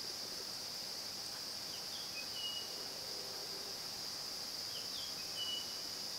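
Steady high-pitched drone of insects, with a bird calling twice, about three seconds apart, each call a short phrase ending in a held whistle.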